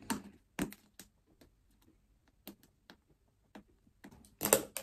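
Fingernails picking and clicking at the plastic-wrapped cardboard of a sealed iPad box, trying to get it open: scattered small clicks and scratches, with a louder cluster of crinkling near the end.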